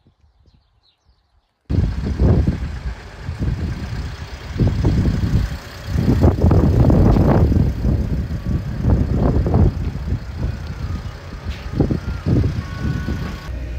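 Wind buffeting the microphone outdoors: a loud, uneven low rumble that comes in gusts. It starts suddenly about two seconds in, after a short, very quiet stretch.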